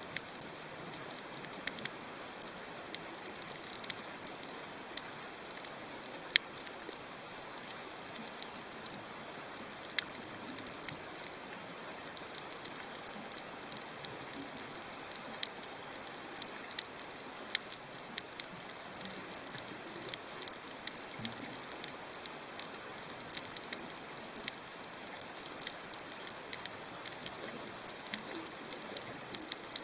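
Underwater coral reef ambience: a steady hiss with many scattered sharp clicks and crackles, the crackle of snapping shrimp.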